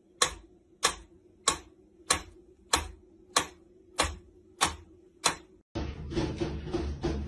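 Mechanical pendulum metronome ticking steadily, nine sharp ticks at about 95 a minute. Near the end the ticking stops abruptly and a louder, denser jumble of sound takes over.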